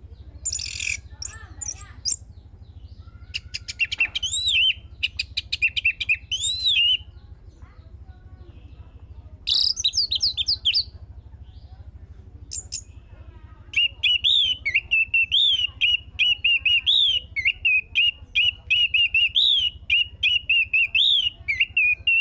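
Orange-headed thrush singing: short bursts of rapid, varied high-pitched phrases, then one long unbroken run of quick chirping notes through the second half.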